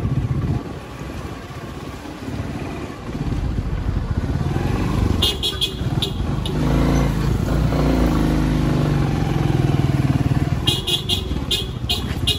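A motor vehicle engine, most like a motorcycle, running and getting louder about four seconds in, with short high-pitched beeps or clicks in quick clusters around the middle and again near the end.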